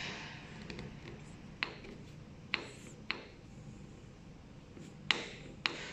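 Light metallic clicks, five in all and irregularly spaced, as a hand works the shaft-coupling sleeve between a gear pump and its motor. The sleeve shifts in its clearance, showing it moves freely on the coupling.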